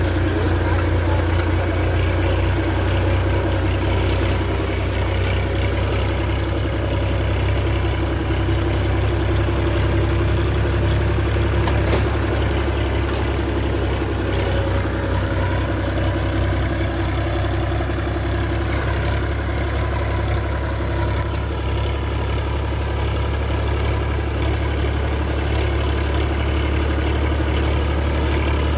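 Massey Ferguson 50 hp tractor's diesel engine running steadily.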